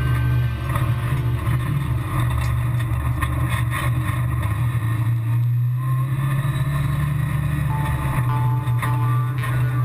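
Engine of a 2015 Can-Am Maverick XDS Turbo side-by-side, a turbocharged Rotax V-twin, running steadily at low speed while the UTV is driven over rocks and gravel.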